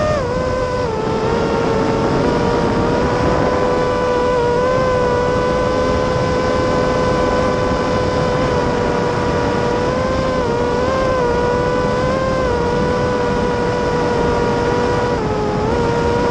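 Motor and propeller of a small radio-controlled aircraft whining steadily from its onboard camera, the pitch stepping briefly up and down a few times as the throttle changes, over a rush of wind noise.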